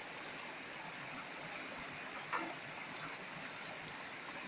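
Shallow stream running over rock, water washing around a metal gold pan held and swirled in the current. One brief louder sound about halfway through.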